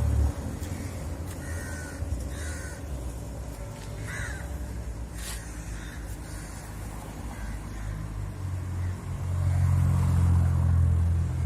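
Crows cawing a few short times over a low rumble, which swells louder near the end.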